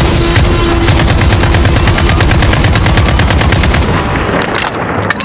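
Rapid machine-gun fire, a fast even run of shots lasting about four seconds.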